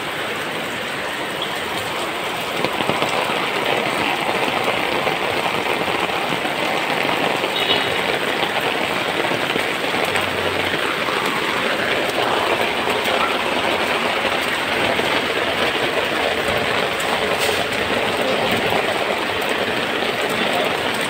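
Heavy rain falling steadily, a little louder from about two and a half seconds in.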